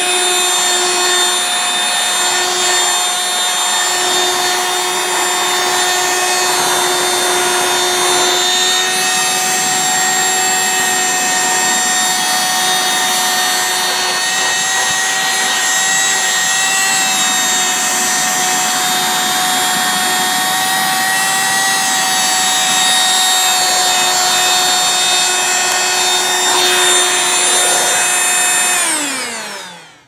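Dirt Devil Ultra hand vacuum running steadily with a high motor whine. Near the end it is switched off and the whine falls away within about a second.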